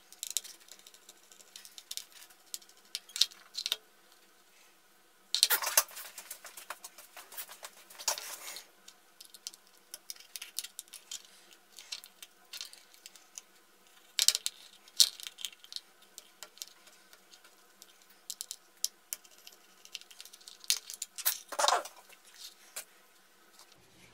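Small precision screwdriver clicking and scraping against the screws and thin metal casing of a Toshiba 2.5-inch laptop hard drive as it is unscrewed and its cover pried off. Scattered sharp metallic ticks, with a few denser clattering stretches, the longest about five seconds in.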